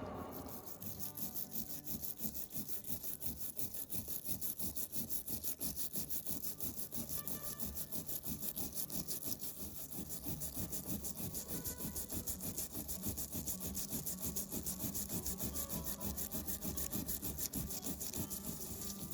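Steady, rhythmic back-and-forth rubbing by hand, about three strokes a second: an abrasive being worked over a surface of the old hand drill to scour off rust and grime.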